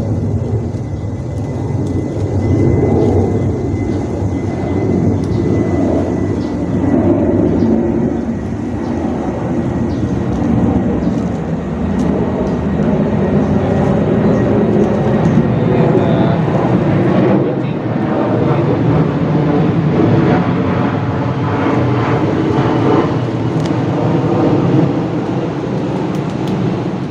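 A loud, steady engine drone that cuts off abruptly at the very end.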